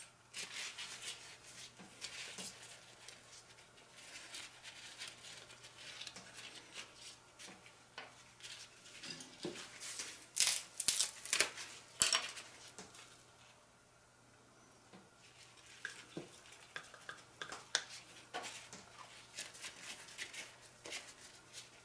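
Liquid casting resin being stirred and handled in small mixing cups, with scattered clicks, taps and scrapes of a stirring stick against the cup sides. The clicks are busiest and loudest about ten to twelve seconds in.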